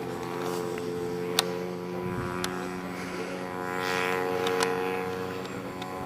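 Gasoline engine of a 1/3 scale Aeronca Champ RC model plane running steadily as a drone, getting louder for a second or two near the middle. A few sharp clicks are heard, the loudest about a second and a half in.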